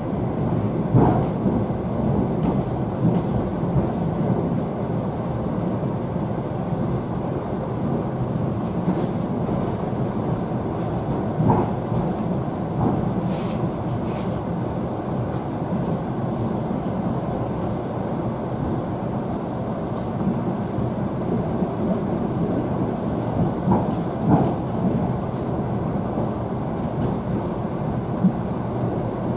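ET2M electric multiple unit running at speed, heard from inside the passenger car: a steady rumble of wheels on rails, with a few brief knocks and a thin high tone above it.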